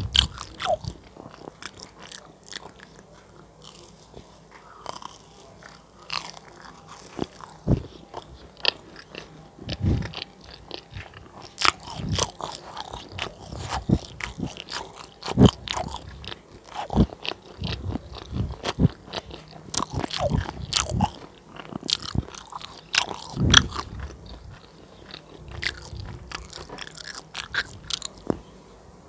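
Close-miked crunchy biting and chewing of fried banana cake: repeated crisp crackles of the fried batter breaking between the teeth, coming in irregular clusters.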